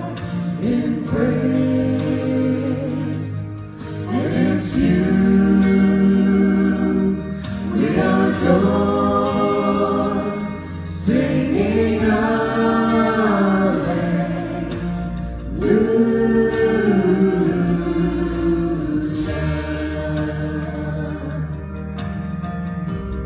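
Gospel-style worship music: a small vocal ensemble singing slow, long-held phrases in harmony over sustained low accompaniment notes that change every few seconds.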